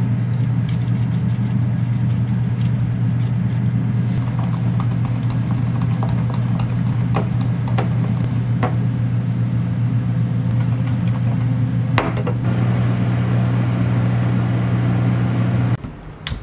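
An air fryer running with a steady low hum that cuts off suddenly near the end, as its basket is pulled out. Over it, a wooden spoon clicks and scrapes against a glass bowl while stirring a thick sauce, with one louder knock about twelve seconds in.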